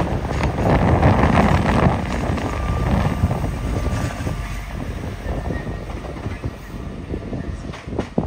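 A train running past, its rumble gradually fading as it moves away.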